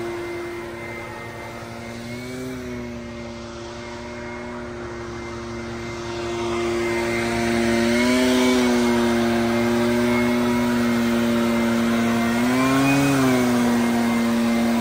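Vehicle engine running at a steady speed, its pitch rising briefly about two and a half, eight and a half and thirteen seconds in as it revs a little. It grows louder from about eight seconds in.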